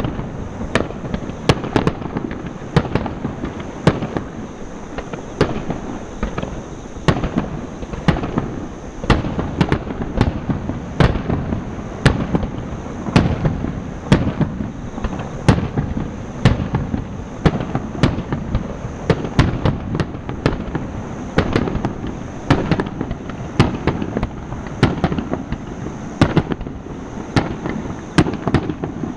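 Aerial fireworks bursting in rapid succession: a dense barrage of sharp bangs, several a second, with a low rumble of echoing reports between them.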